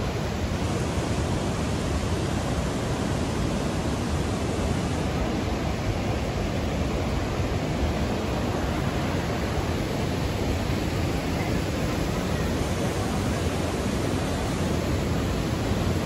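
Waterfall and fast-flowing stream rushing steadily.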